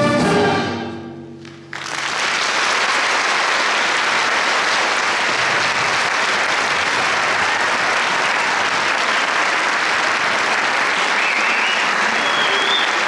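A school concert band's last held chord fades out over about a second and a half. Then audience applause breaks out suddenly and continues steadily.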